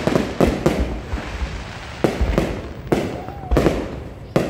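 Aerial fireworks shells bursting in a string of sharp bangs, some in quick clusters of two or three, each trailing off in a low rumble and crackle.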